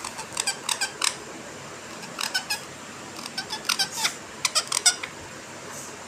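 Rose-ringed (ringneck) parakeet giving short, sharp chirping calls in four quick bursts of two to four calls each, roughly a dozen in all, the loudest near the end.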